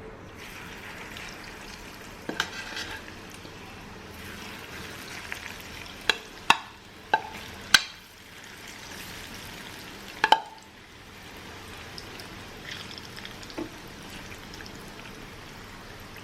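Pointed gourd (parwal) pieces deep-frying in hot oil with a steady sizzle. Several sharp clinks of a utensil against the pan come in the middle, most of them between about six and eight seconds in, with another a little after ten.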